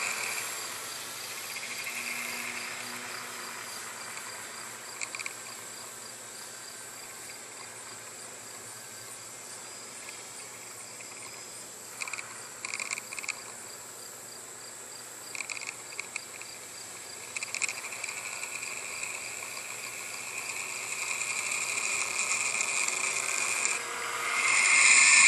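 Insects chirring steadily, with a few short louder bursts in the middle and a louder buzz that swells up near the end.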